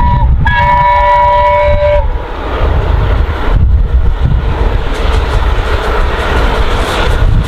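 Steam locomotive No. 60163 Tornado, an LNER Peppercorn A1 Pacific, sounding its chime whistle: the tail of one long blast, a short break, then a second long blast that stops about two seconds in, the warning for a foot crossing. After it, the rumble and hiss of the locomotive and its train coming past.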